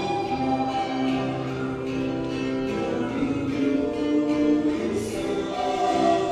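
Communion hymn at Mass: voices singing a slow hymn with instrumental accompaniment, holding long notes.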